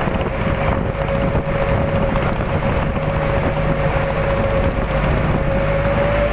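A motor running steadily, with a low rumble and a constant high whine that rises slightly in pitch near the end.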